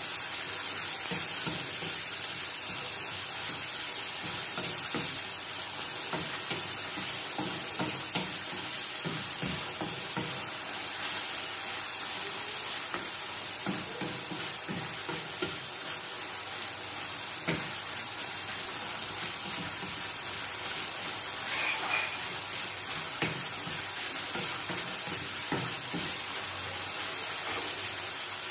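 Onions and tomatoes sizzling in hot oil in a metal wok, with a steady hiss. A wooden spatula stirring them scrapes and knocks against the pan now and then.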